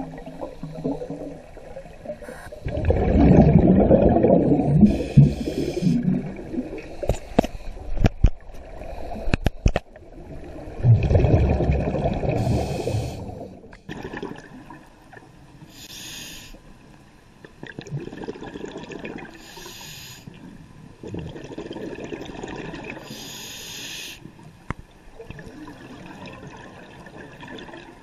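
Scuba diver breathing through a regulator underwater: a short hiss on each inhale every few seconds, and long rushes of exhaled bubbles, loudest in the first half and fainter later.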